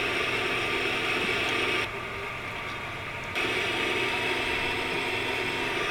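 Steady hiss with a low hum under it. The upper part of the hiss drops out suddenly about two seconds in and returns a second and a half later.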